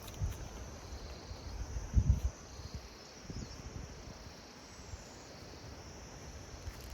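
Steady, high-pitched insect chorus in the background, with low thumps from wind or handling on the microphone about a quarter second in and again around two seconds in.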